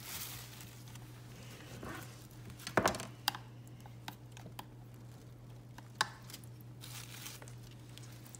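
Handling noise while limes are cut and squeezed by hand over a plastic container: plastic sheeting crinkling, with scattered clicks and knocks, the loudest about 3 seconds in and another about 6 seconds in. A steady low hum runs underneath.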